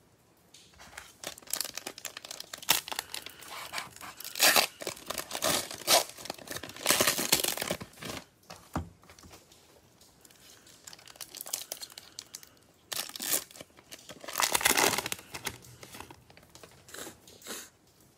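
Plastic wrapper of a Panini Prizm baseball card pack being crinkled and torn open by gloved hands. It comes in irregular bursts, loudest in two spells, about four to eight seconds in and again around thirteen to fifteen.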